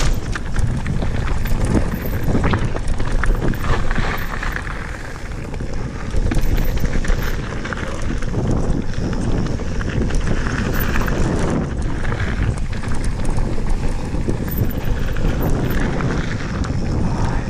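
Wind buffeting an action camera's microphone while a Santa Cruz Bronson mountain bike rolls down a gravel trail, with a steady rumble and scattered clicks and rattles from the tyres on small stones and the bike over bumps.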